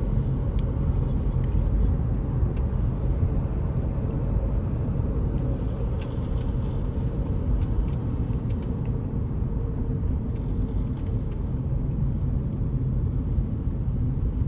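Steady low rumble of a car on the move, engine and road noise, with a few faint short ticks.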